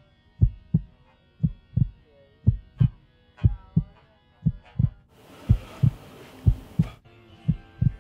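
A heartbeat sound effect: paired low thumps, lub-dub, about once a second, over faint sustained tones. A burst of hiss comes in about five seconds in and cuts off two seconds later.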